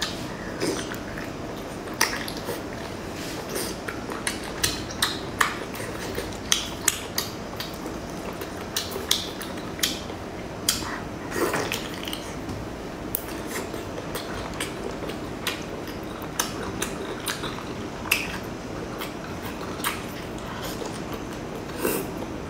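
Close-miked eating sounds of a large sauced squid being torn by hand and chewed: many short, irregular clicks, smacks and cracks over a steady hiss.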